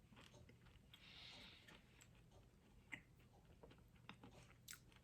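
Faint chewing of a chewy oat cookie, with small mouth clicks and smacks and a soft hiss about a second in.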